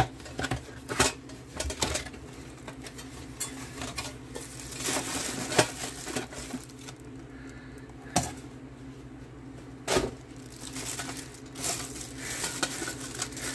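Unboxing by hand: cardboard box flaps scuffing and clear plastic wrap crinkling around a stainless steel cup with a lid, with several sharp clicks and knocks of the metal against the box and countertop.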